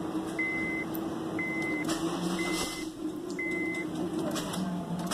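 Honda Civic engine running just after starting, a steady low hum, with a dashboard warning chime beeping about once a second that stops a little before the end.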